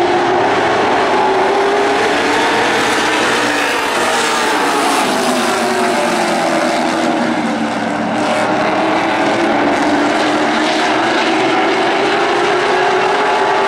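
A pack of NASCAR Late Model stock cars' V8 engines running at racing speed, loud and steady, the engine note slowly dipping and climbing in pitch as the cars circle the oval.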